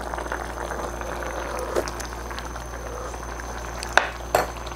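Pan of daikon and chicken stew simmering in shoyu broth on a gas burner, a steady bubbling, while a spoon dips into it to take broth. Two light knocks about four seconds in.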